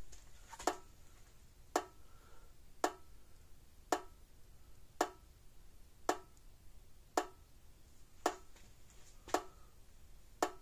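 Hol-Dem Super Power 980 solid-state electric fence charger pulsing after being plugged in, a short sharp tick about once a second, ten pulses in a row.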